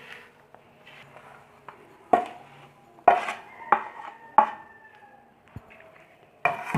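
Metal kitchen utensils clinking: a spoon knocking against a metal dish several times at irregular intervals, some knocks leaving a brief metallic ring, while roasted flour is added to ground flaxseed.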